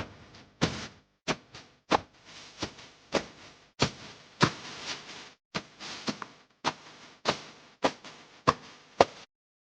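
A series of sharp knocks or taps, about one to two a second at an uneven pace, with faint hiss between them.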